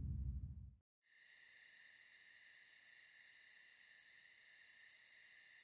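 The low rumbling tail of a final drum hit dies away in the first second. Then faint crickets chirp: a steady high trill with a quick, regular pulse.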